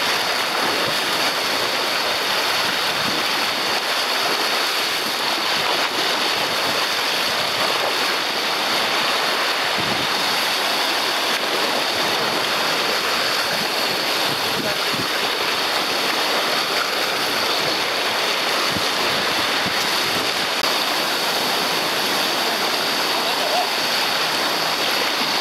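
Rough, churning sea water rushing and washing without a break, a steady, even noise with no distinct waves breaking.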